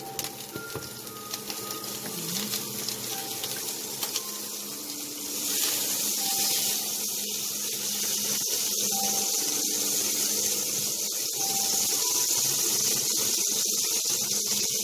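Butter sizzling in a pan of hot oil. The sizzle grows sharply louder and brighter about five and a half seconds in, as the butter hits the hot fat, then stays steady.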